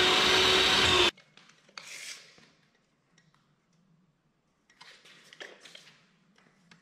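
Table saw running and cutting a board, cut off abruptly about a second in. Then faint rustles and small clicks as a steel tape measure is handled against a drawer box.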